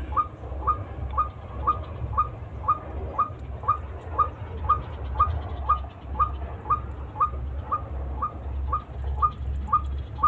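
An animal call: a short, sharp note repeated evenly about twice a second, over a steady low rumble.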